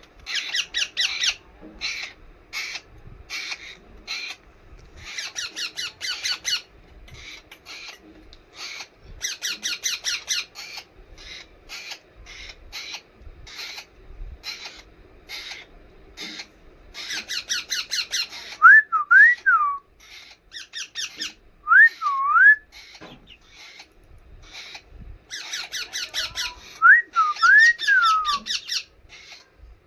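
Young pet parrot calling over and over in short, harsh chattering bursts. A few clear up-and-down whistles come in near the end, over a faint steady hum.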